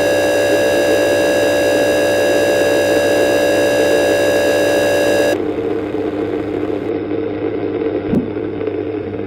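Emergency alert tone of a mock EAS broadcast: a harsh, steady single-pitch buzzing tone over static, cut off abruptly about five seconds in. What follows is quieter static hiss and hum with one click near the end.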